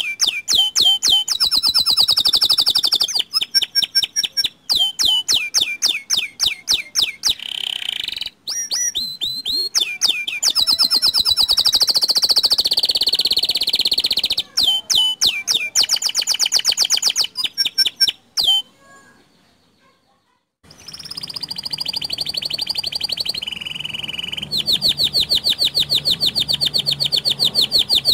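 Domestic canary (Indonesian local canary) singing: long runs of very fast trills and rolled phrases, one after another. There is a pause of about two seconds roughly two-thirds of the way through, then a long rapid trill.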